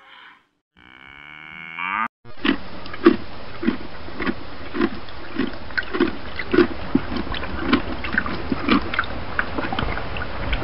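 Cattle: a brief pitched call about a second in, then a steady rustling noise with a regular low thud roughly every 0.6 seconds and scattered clicks.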